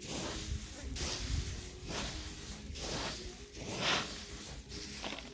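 Dry rice stalks rustling and swishing in repeated bursts, about one a second, as the rice is handled during the harvest.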